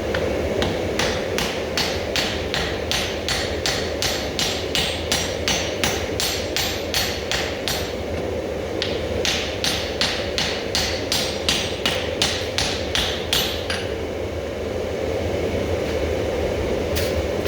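Hammer striking hot steel on an anvil in a steady rhythm of about two and a half blows a second, forge welding a cracked axe head. The blows break off briefly twice and resume near the end, over a steady background hum.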